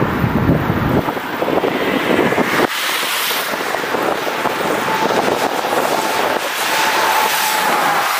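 Wind rumbling on the microphone of a moving bicycle, which gives way suddenly about three seconds in to an even road hiss of tyres on wet asphalt. Near the end a lorry passes close alongside, adding a steady whine to the hiss.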